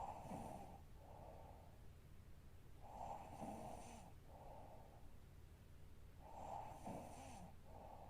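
A sleeping woman snoring faintly, three snores about three seconds apart, each followed by a shorter breath sound.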